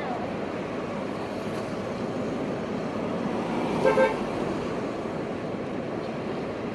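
Steady street traffic noise, with a car horn tooting twice in quick succession about four seconds in.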